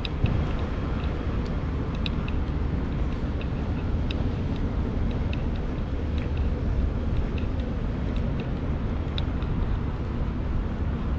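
Outdoor ambience in the rain: a steady low rumble with scattered light high ticks.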